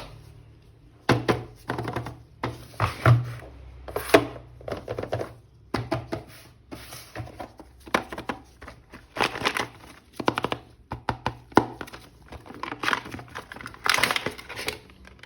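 Irregular plastic clicks, knocks and crinkling from an action figure and its packaging being handled.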